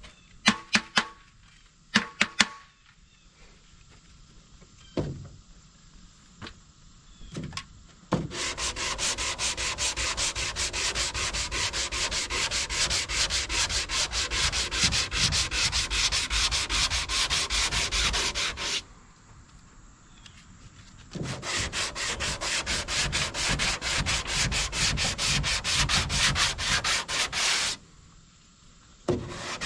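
Hand sanding of cured body filler on a fiberglass boat hull with a long sanding block, a belt-sander sanding belt on a board, to fair the repaired chine. The block is pushed back and forth in quick, even strokes in two long runs, with a short pause between them. A few sharp knocks come near the start.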